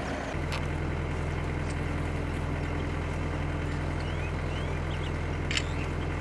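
A vehicle engine idling with a steady low hum, its note settling just after the start. Faint bird chirps come about four seconds in, and a sharp click near the end.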